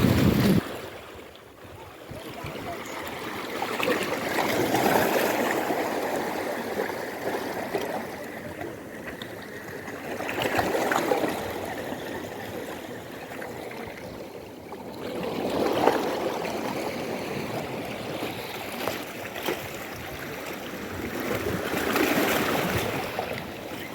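Sea waves washing up the beach and draining back, swelling and fading about every five to six seconds, with a short low rumble of wind on the microphone at the very start.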